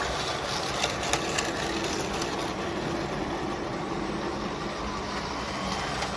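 Two 3D-printed model train engines running on the track: a steady whirring hum from their small electric motors and worm-gear drives, with a few light clicks about a second in.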